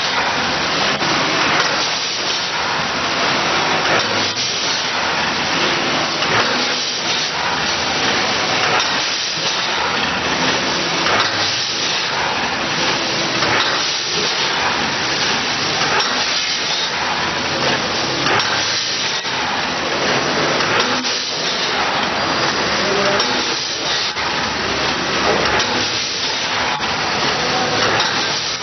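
Vertical form-fill-seal packaging machine with a multihead weigher running: a steady hissing machine noise with a stronger pulse about every two seconds.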